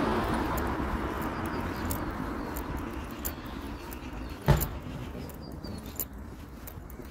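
A car passing on a residential street, its tyre and engine noise fading away over the first few seconds. One short, sharp sound about halfway through, then faint high clicks and chirps.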